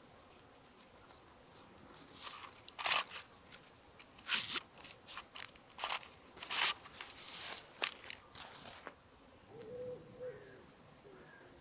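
Irregular crunching and rustling from handling a hammock rope around a tree trunk, in short scattered bursts over several seconds. A brief low tonal sound follows near the end.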